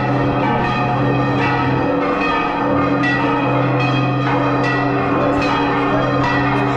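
Church bells ringing in a peal, several bells struck again and again so their tones overlap and ring on.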